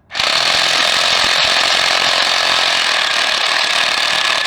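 Power impact wrench hammering continuously on engine bolts. It starts up right at the beginning after a short pause and runs steadily and loudly.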